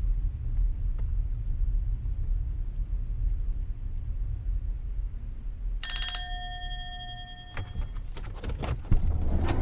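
Steady low rumble of a car in motion, heard from inside the cabin. About six seconds in, a bell-like ding rings once and fades out over about a second and a half.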